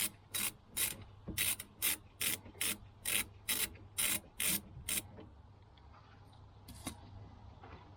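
Ratchet wrench being worked back and forth on a brake caliper bolt, a quick even run of about a dozen short rasping strokes, two or three a second, that stops about five seconds in.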